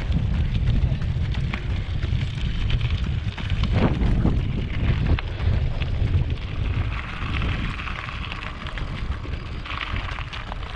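Wind buffeting the microphone of a camera carried along on a run: a steady low rumble. Through it come light ticks of running steps on a gravel path, and a brighter hiss rises about two-thirds of the way in.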